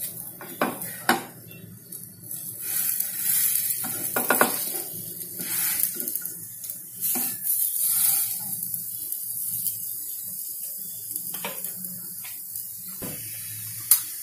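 A thin gram-flour batter crepe sizzling in oil in a nonstick frying pan, with a spatula scraping and tapping against the pan as the crepe is rolled up. There are several short knocks, the sharpest near the end.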